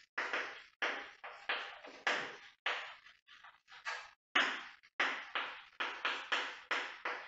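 Chalk writing on a chalkboard: a run of short, sharp strokes, about two a second, with brief gaps between letters.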